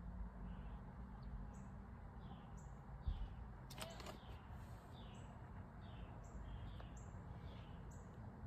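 A bird chirping over and over, short high notes repeated about once or twice a second, over a faint low outdoor rumble. A single soft thump comes about three seconds in.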